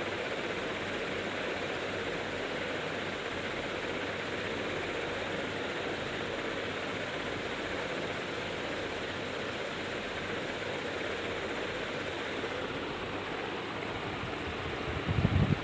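Steady, even rushing noise with no pitch or rhythm, like a constant background hiss; a short low thump comes near the end.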